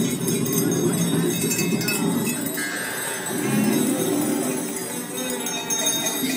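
Amplified improvised experimental music played on percussion and found objects: a dense, droning mix with scattered jingles, and a brief steady high tone about three seconds in.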